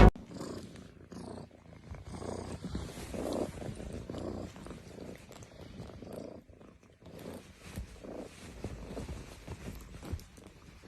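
A cat purring, swelling and fading about once a second.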